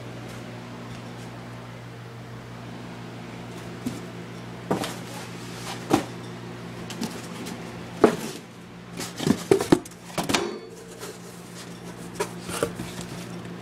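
A steady low mechanical hum, with a cluster of knocks and clatter from about 4 to 11 seconds in.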